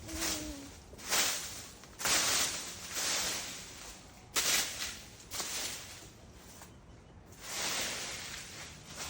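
Repeated swishing, rustling strokes through grass and brush, roughly one a second with an irregular pause in the middle, as overgrowth is cut back by hand.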